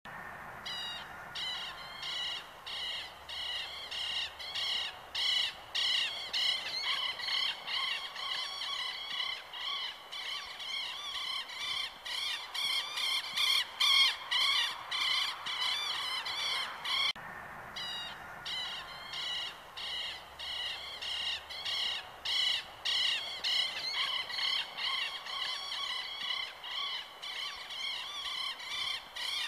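A dense chorus of animal calls, shrill chirping repeated several times a second, broken by a short pause about 17 seconds in before it starts up again.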